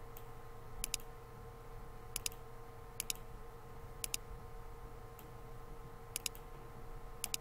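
Computer mouse button clicks, about seven, spaced roughly a second apart, each a quick double tick of press and release, over a faint steady electrical hum.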